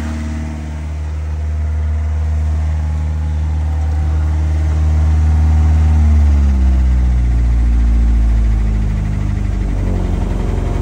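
Yacht's inboard diesel engine running steadily just after starting from cold. Its speed drops off about six seconds in.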